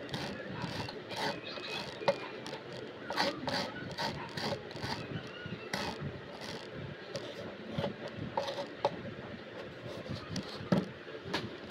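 Miniature kitchen knife chopping tomato on a small wooden cutting board: the blade taps the board again and again at an irregular pace.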